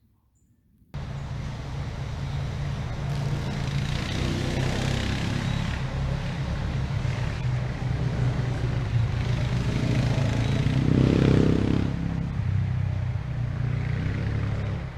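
Off-road vehicle engine running steadily as it goes by, starting abruptly about a second in and growing louder around eleven seconds before easing off.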